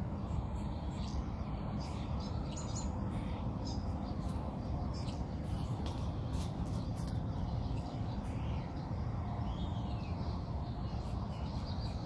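Small songbirds giving scattered short chirps, thickest a few seconds in and again near the end, over a steady low rumble.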